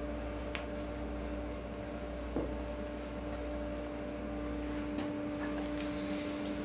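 Steady electrical hum with a low rumble underneath: room tone, with a few faint clicks scattered through it.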